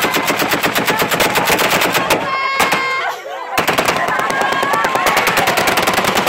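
Automatic rifle fired into the air in long rapid bursts, stopping for about a second near the middle and then firing again, with crowd voices crying out over it.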